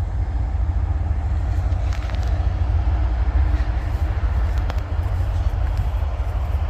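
Freight train cars rolling past on the track: a steady low rumble with a few faint clicks.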